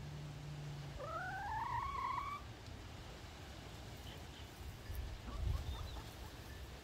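A chicken gives one rising, drawn-out call lasting about a second and a half, starting about a second in. A steady low hum stops as the call begins, and faint ticks and low bumps follow.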